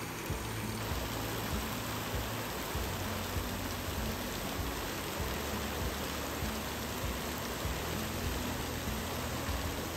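Rushing river water splashing over a weir and pouring off the paddles of a turning wooden water wheel, a steady, even rush of water.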